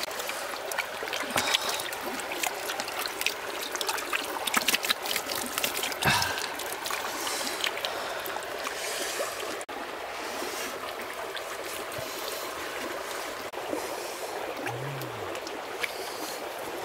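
Hands scooping, slapping and smoothing wet mud in shallow muddy water, with many small splashes and squelches over a steady trickle of water.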